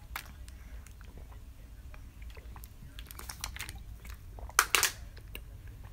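Quiet mouth noises and small clicks of a man drinking water from a plastic bottle and swallowing, with a short, louder breath about four and a half seconds in.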